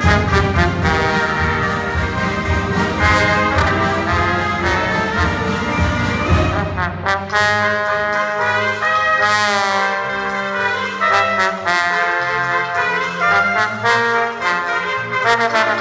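Dixieland jazz combo playing live, with trumpets and a trombone leading. A steady beat underneath drops out about seven seconds in, leaving the horns holding and bending notes.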